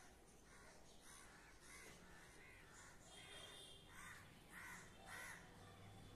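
Faint cawing of crows: a run of about eight short caws, the loudest in the second half.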